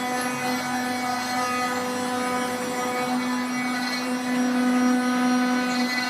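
Three-axis CNC machine running: a steady motor whine, louder from about three seconds in.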